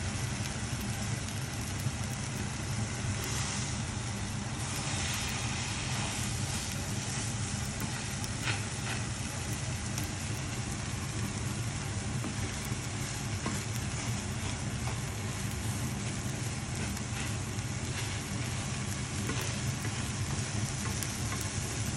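Egg and eggplant sizzling in an oiled frying pan, with a few light taps and scrapes of a plastic slotted spatula, over a steady low hum.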